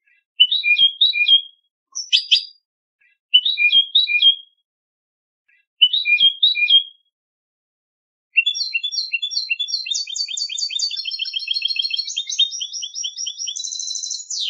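European goldfinch singing contest-style song: three short, high repeated phrases with a brief call between the first two, then, about eight seconds in, a long run of rapid repeated trilled notes.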